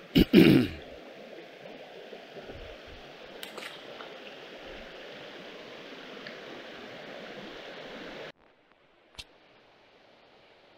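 Flowing river water, a steady rush, after two loud knocks right at the start. About eight seconds in, the water sound cuts off abruptly, leaving near silence with one faint click.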